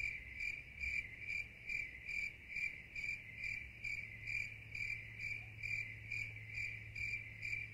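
Cricket chirping at a steady, even pace, a little over two chirps a second, over a faint low hum.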